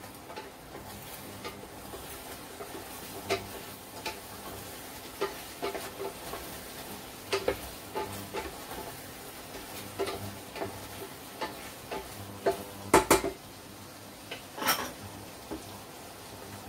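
Wooden spatula stirring chicken and chestnuts in a stainless steel pot of simmering stew, with light scrapes and taps against the pot and two louder knocks near the end.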